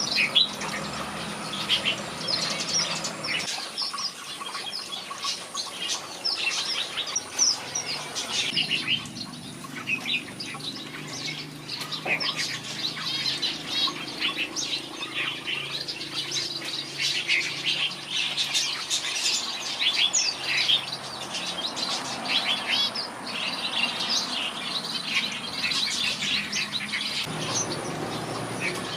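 Red-whiskered bulbuls singing and chirping: a dense, unbroken run of short, high, overlapping notes.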